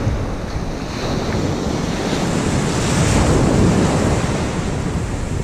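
Ocean surf washing in over the shallows, with wind buffeting the microphone. The wash swells about halfway through, then eases.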